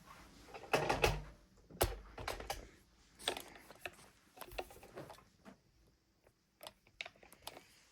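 Hands working thread at an industrial sewing machine: irregular clicks, taps and rustles, busiest in the first few seconds and then sparser.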